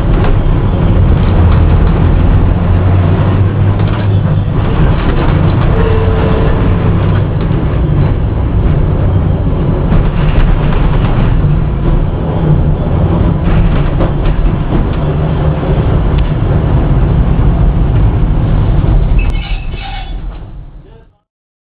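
Lisbon tram no.730 running along its rails, heard from inside the cab: a steady, loud rumble of motors and steel wheels on track, with occasional sharp clicks over rail joints and points. The sound fades out near the end.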